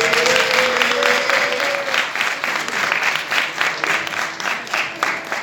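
Audience applauding with dense, rapid clapping that thins out near the end. A single long held tone, rising slightly in pitch, sounds over the first two seconds.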